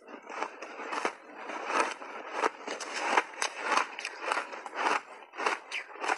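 Matcha-dusted shaved ice crunched between the teeth, a quick run of crisp crunches at about three a second, close to a clip-on microphone.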